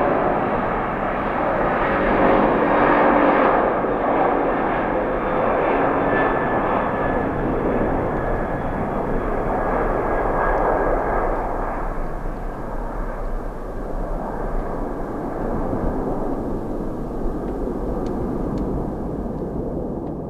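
Twin jet engines of a Boeing 767 airliner at takeoff thrust through the takeoff roll, lift-off and climb: a loud, steady rushing noise. A few faint steady whines sit in it over the first few seconds, and its highest part fades from about halfway as the jet draws away.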